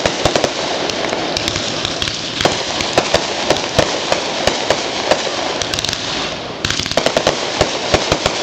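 Aerial fireworks bursting overhead, a dense run of sharp cracks and pops from crackling stars over a steady hiss. The crackle eases briefly about six and a half seconds in, then a new burst sets off another run of cracks.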